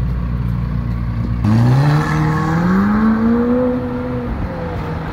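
McLaren 750S's twin-turbo V8 rumbling low and steady, then about one and a half seconds in the car pulls away hard. The engine note climbs for about two seconds, levels off and fades as the car drives off.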